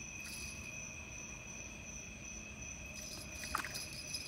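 Night insects, crickets among them, calling in a steady chorus, heard as two continuous high trilling tones. A brief faint click comes about three and a half seconds in.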